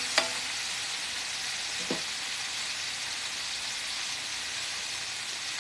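Seasoned chicken breasts sizzling in oil in a countertop electric skillet: a steady frying hiss, with the seasoning blackening at the pan's edges. A few light clicks right at the start.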